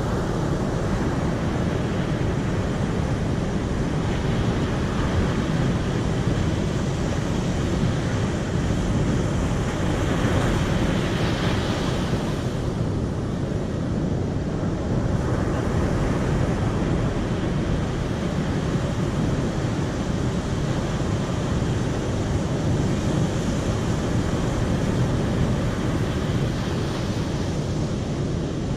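Steady rushing of running water, with a brighter hiss swelling for a few seconds near the middle.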